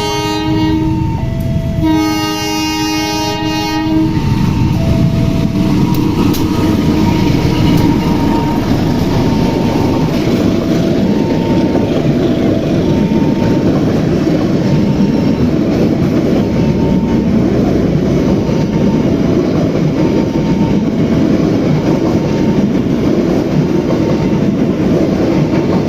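CC 201 diesel-electric locomotive's horn sounds twice, a multi-note blast ending about a second in and a second one from about two to four seconds, followed by the loud steady rumble of the locomotive and its carriages running past on the rails. A faint two-note alternating tone repeats under the rumble.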